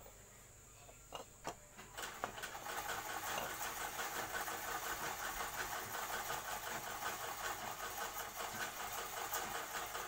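A refrigerator compressor's motor-pump unit, out of its shell, running in the hand with a steady rapid rattle from about two seconds in. A couple of light knocks come just before it starts.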